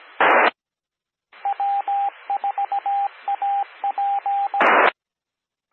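Two-metre amateur radio repeater sending its Morse code identification: a single-pitch tone keyed in short and long beeps over a hissy carrier for about three seconds. A short loud burst of static comes just before the ID and again as the carrier drops off.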